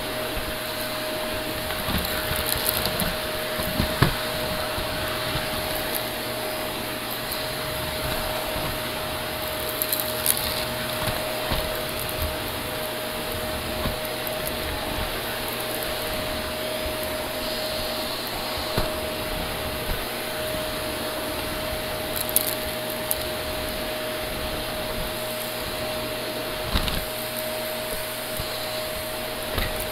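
Green Shark Navigator upright vacuum cleaner running steadily with a constant hum, with scattered sharp clicks and crackles as bits of debris are sucked up. The loudest click comes about four seconds in.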